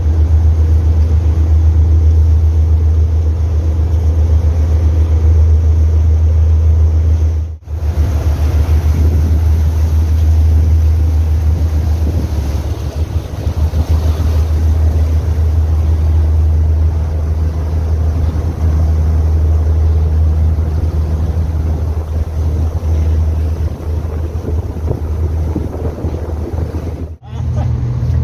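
Passenger ferry's engine running with a steady low hum, under a wash of wind and water noise. The hum is strongest in the first half and weaker from about twelve seconds in, and the sound cuts out for an instant twice.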